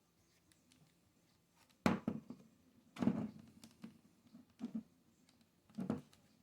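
Plastic game-controller shell being handled and worked on: four short knocks and clicks, about 2, 3, 4.7 and 6 seconds in, against a quiet room.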